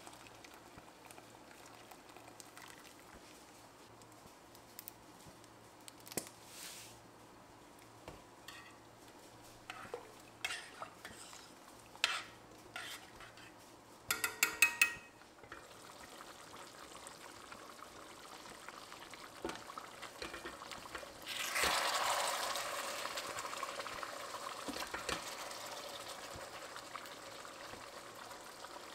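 Metal spoon clinking and scraping against a stainless steel pot as rice in water is stirred, with a quick run of taps about halfway through. Later a hissing, sizzling noise starts suddenly and slowly fades.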